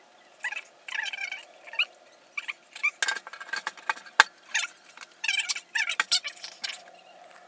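Irregular clicks, scrapes and squeaks of a plastic-and-metal PC case's hard drive cage and drive being handled and fitted together, with one sharp click about four seconds in.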